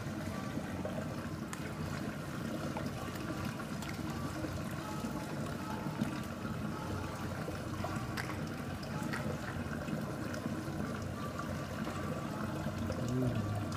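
Water trickling steadily in a shallow sea-turtle tank.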